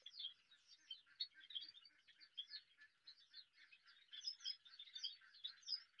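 Faint, continuous chatter of many short, overlapping chirps from a colony of Java sparrows.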